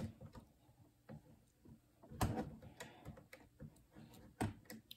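Plastic Lego bricks clicking and tapping as they are handled and pressed together, with small ticks throughout and a few louder knocks about two seconds in and again near the end.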